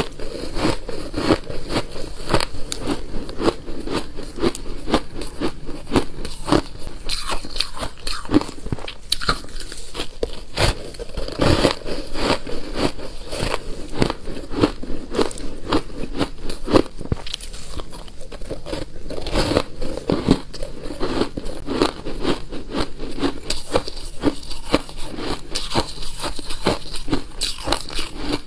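Close-up crunching of a block of soft shaved ice being bitten and chewed: a dense, continuous run of crackly crunches from the teeth breaking the packed ice.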